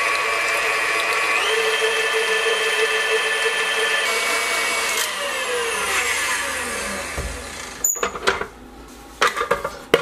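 Electric stand mixer beating cream with a wire whisk on high: a steady motor whine that steps up in pitch about a second and a half in, then winds down and stops over a couple of seconds past the middle as the mixer is switched off. Near the end come several clinks and knocks of the metal whisk against the steel bowl as they are handled.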